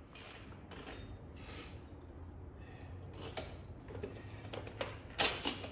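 Scattered clicks, knocks and rustles of hand tools and metal parts being handled during a motorcycle wheel change, the loudest a cluster of knocks near the end, over a faint steady low hum.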